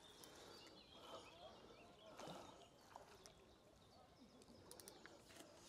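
Near silence: faint outdoor background with a few faint ticks near the end.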